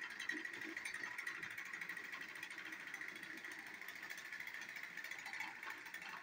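Small electric motors and plastic gearboxes of battery-powered TrackMaster toy engines running, a steady high whirring with fast gear ticking as two engines push against each other on plastic track.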